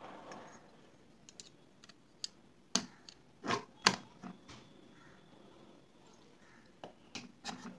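Scattered light metallic clicks and taps as a screwdriver tip presses the piston rings into the cylinder bore while the motorcycle cylinder barrel is eased down over the piston. The loudest clicks come in a small cluster between about three and four seconds in.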